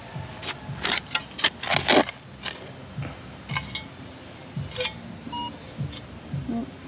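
A steel digging spade stabs and scrapes into turf and soil, with a quick run of sharp chinks and scrapes in the first two seconds and a few more later. A short metal detector beep comes about five seconds in.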